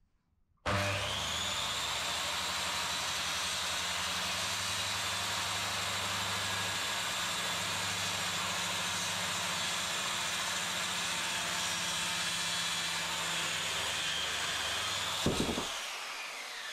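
Corded circular saw starting up and cutting through a softwood batten with a steady high whine. Near the end there is a knock, and then the motor winds down with a falling whine.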